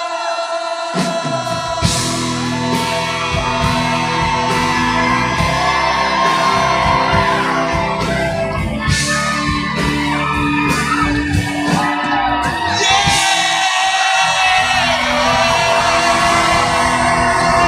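Live rock band playing, with singing over it; the bass and drums come in fully about a second in.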